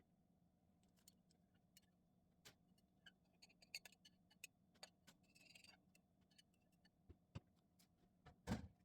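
Quiet handling noises from cleaning out a fridge: scattered light clicks and taps, a short hiss about five seconds in, and a louder knock near the end, over a low steady hum.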